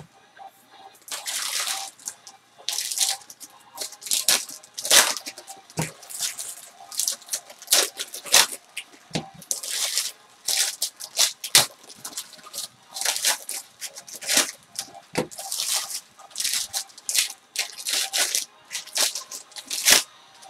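Foil trading-card pack wrappers crinkling and tearing as packs are ripped open by hand, in quick irregular bursts of rustling.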